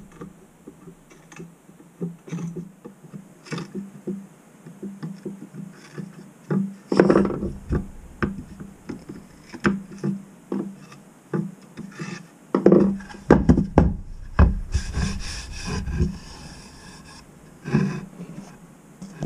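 A small metal hand tool scraping and scratching on a pine board, with irregular knocks and taps of wood on the workbench. There are denser bouts of rubbing and knocking about seven seconds in and again from about twelve to sixteen seconds.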